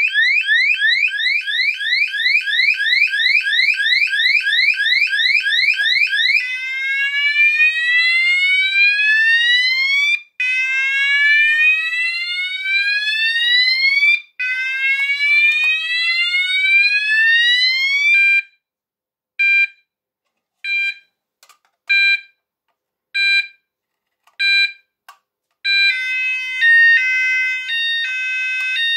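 Sonos DC multi-tone fire alarm sounder cycling through its tones as its DIP switches are changed. First a fast rising whoop about four times a second, then slow rising sweeps about four seconds each. Then short beeps at two pitches with silent gaps and faint switch clicks, and near the end a steady two-tone alternating warble.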